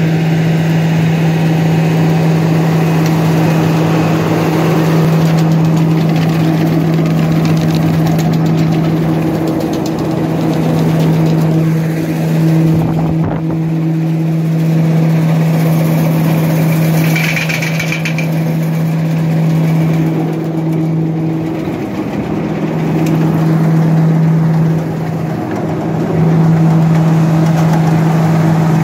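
New Holland 9090X olive harvester running while harvesting: a loud, steady engine-and-machinery drone with a strong low hum that dips briefly a few times.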